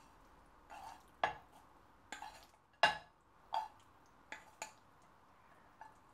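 Wooden chopsticks and a saucepan knocking and scraping as linguine is pushed out of the pan onto a ceramic plate. There are several sharp clacks, the loudest about three seconds in, with short scrapes between them.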